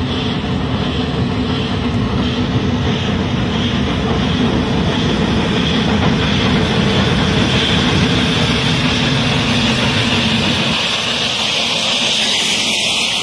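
Steam locomotive hauling a freight train, working hard with a steady exhaust beat and heavy rumble as it comes up and passes close by. About eleven seconds in the deep rumble falls away, leaving a loud steam hiss as the goods wagons roll past.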